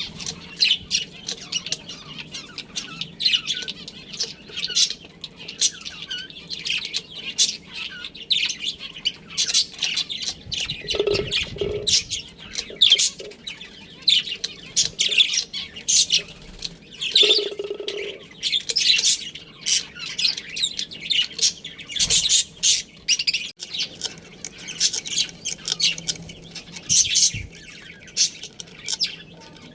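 A colony of budgerigars chattering, with rapid high chirps and squawks throughout. Twice, about a third and a half of the way through, there is a brief lower-pitched sound.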